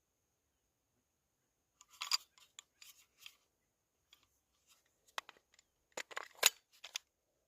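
A run of short metallic clicks and rattles from a handgun being handled. The sounds come in two clusters, about two seconds in and again from about five seconds, with the sharpest click near the end.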